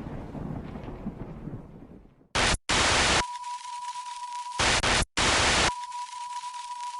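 A deep boom dying away over the first two seconds. Then a static-glitch transition effect: bursts of white-noise hiss that switch abruptly on and off, with a steady high beep running under two of the bursts.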